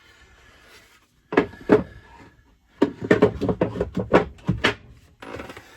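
A quick run of sharp knocks and clunks as hard objects are handled and bumped in a cramped engine room, the loudest coming in the middle few seconds.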